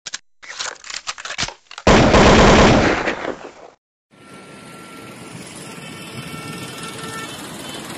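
Channel logo intro sound effect: scattered crackling clicks, then a loud harsh noisy burst that lasts about two seconds and cuts off. After a brief silence about four seconds in, a steady hiss of outdoor background noise follows.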